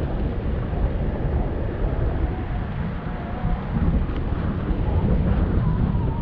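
Wind buffeting the microphone of a moving camera: a steady, loud rumble. A faint wavering whine sits underneath it.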